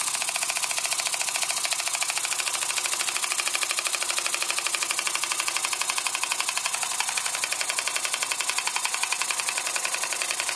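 Stuart S50 model steam engine running on compressed air on its first run: a rapid, even exhaust beat over a steady hiss of air. It has no gland packing and no gaskets on one side of the cylinder, so air escapes at the joints.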